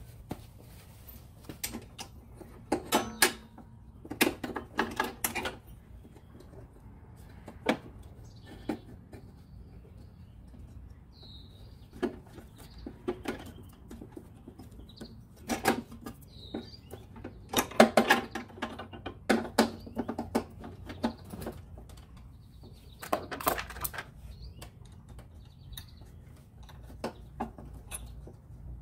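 Clicks, clacks and rattles of parts being handled on a Toro Recycler 22 self-propelled mower as the drive belt is worked onto the transmission pulley and the sprung transmission bracket is fitted back on, in several short bursts of knocking. Faint bird chirps come through now and then.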